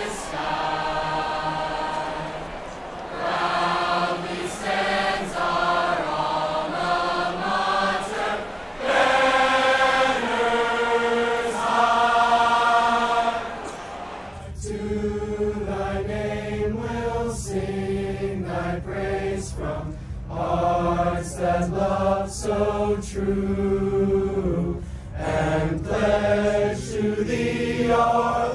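A large group of marching band members singing together without instruments, a choir of voices on long held notes, led by a conductor. About halfway through, the sound cuts to another recording of the group singing, with a steady low rumble underneath.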